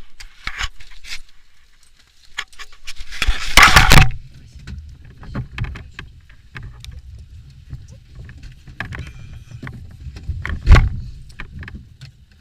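Car being boarded: door-handle clicks and rustling, a loud rush building to about four seconds in, then the steady low rumble of the engine running. A single sharp thump, likely a car door shutting, comes late on.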